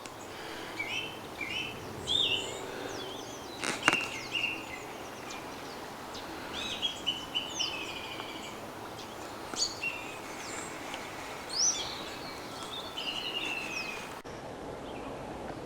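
Small birds singing and calling in a string of short chirps and warbles over a steady outdoor hiss, with one sharp click about four seconds in. Near the end the birdsong stops and only the steady hiss remains.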